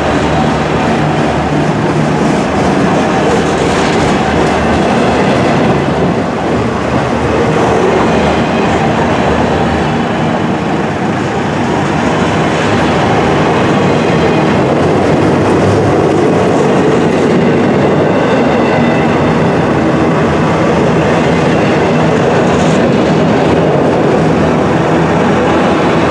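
Freight train of autorack cars passing close by: steel wheels rolling on the rails, loud and steady, with occasional clacks.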